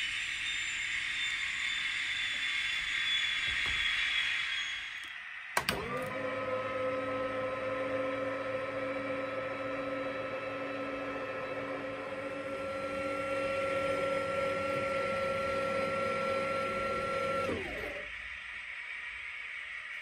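Electric motor of an N gauge model railway's train lift: a click about five seconds in, then the motor whirs up, runs with a steady whine for about twelve seconds and winds down to a stop. A steady hiss comes before it.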